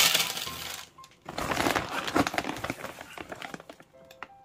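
Clear plastic bag around a sack of dry cat food crinkling loudly as hands rummage inside it, in two bouts of about a second and two seconds. Background music plays under it and is heard alone near the end.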